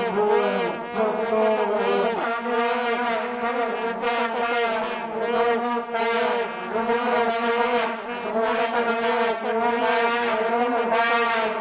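Many vuvuzelas blown together by a football stadium crowd. They make a continuous, wavering, one-note buzzing drone that never lets up.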